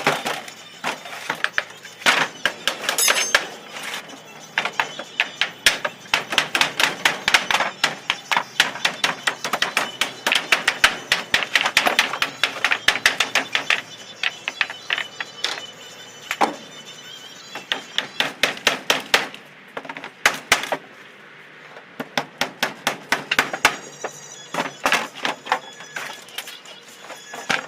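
Rapid runs of hammer blows on wood, several strikes a second with short pauses between runs: nails being driven into a wooden pallet under repair.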